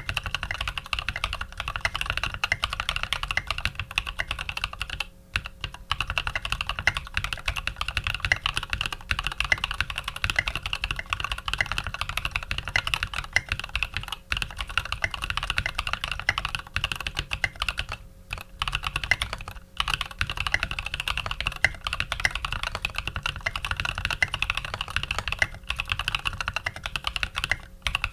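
Fast, continuous typing on a custom mechanical keyboard with lubed Cream linear switches on an aluminium plate and SA-profile keycaps, the keystrokes running densely with a few short pauses.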